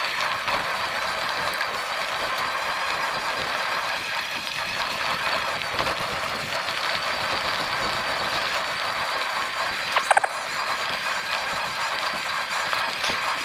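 Cyrusher Ranger electric bike riding over a rough gravel and dirt track: a steady rattle and crunch of tyres and frame on the stones, with a brief high squeak about ten seconds in.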